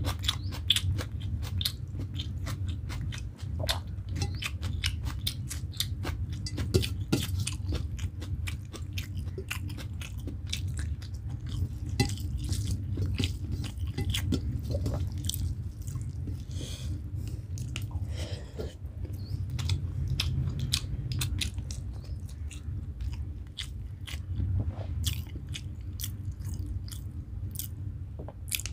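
A person chewing rice and egg curry eaten by hand, with many wet mouth smacks and clicks, over a steady low hum.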